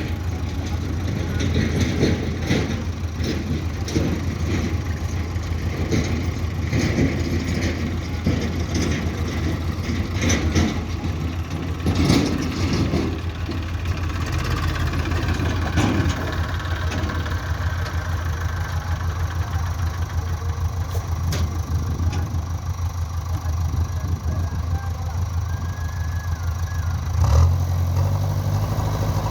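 Heavy diesel engine of construction or farm machinery running steadily, with irregular metallic knocks and clanks over the first half. Near the end the engine note rises.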